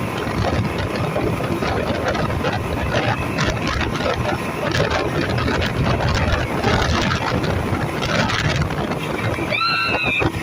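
Speedboat running at speed, with loud rushing wind and water noise on the microphone. A brief high-pitched voice cries out near the end.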